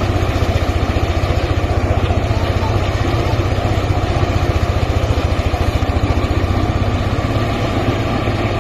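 Engine of a rice-harvesting machine running steadily, with a fast, even low throb.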